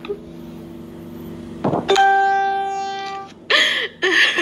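A woman crying: a long, loud, held wail about two seconds in that slowly fades, then two sharp sobs near the end.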